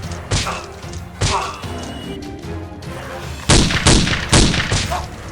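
Background music with sharp bangs over it: one about half a second in, another a little past one second, then four in quick succession from about three and a half seconds in.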